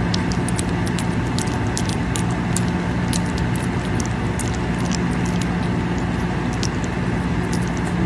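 Tiny puppy lapping and licking soft food from a plate: irregular small wet clicks throughout, over a steady low hum.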